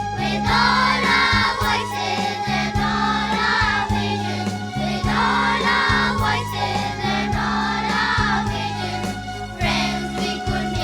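Music with a steady beat and bass line, and a group of voices singing over it.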